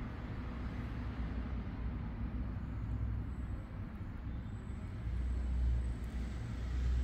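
Cat purring, a steady low rumble with a slight swell in loudness about five seconds in.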